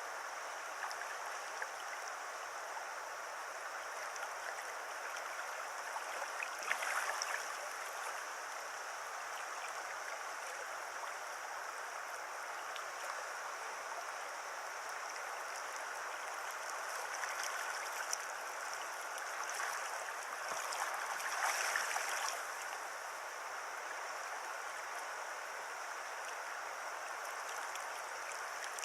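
River water running steadily over a shallow mountain stream, an even rushing and gurgling, with two brief louder swells of splashing about seven and twenty-two seconds in.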